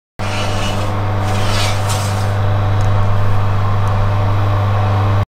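Steady low electric hum of an oven running, starting and stopping abruptly, with a few brief scraping noises in the first two seconds.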